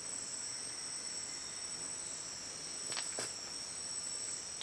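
Steady, high-pitched insect chorus, holding two even pitches without a break, with two faint clicks about three seconds in.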